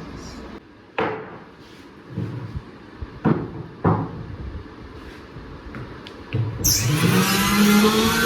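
A few sharp knocks on the workpiece, then an electric power tool's motor starts near the end, its pitch rising as it spins up, and keeps running.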